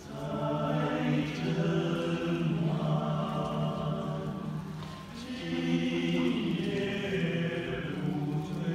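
A six-man male vocal ensemble singing long held chords in harmony, dipping briefly about five seconds in before swelling again.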